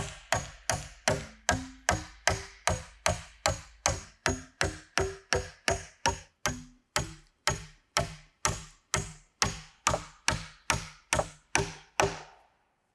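A rapid, very even series of sharp knocks, a little under three a second. Each knock has a short ringing note whose pitch changes from one knock to the next. The knocks stop about twelve seconds in.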